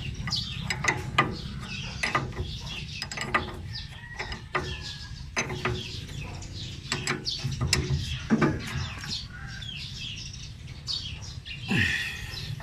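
Steel spanners clicking and clinking against a nut and bolt as the knife-drive bolt on a reaper's cutter bar is tightened, in irregular metallic clicks throughout.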